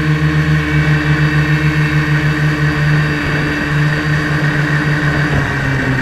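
Large FPV quadcopter's electric motors and propellers humming steadily, the pitch wavering and shifting about halfway through as the throttle changes, over a steady hiss.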